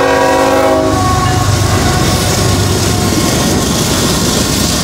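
A diesel locomotive's multi-note horn chord, cut off about a second in, then the loud steady rumble of a freight train rolling past.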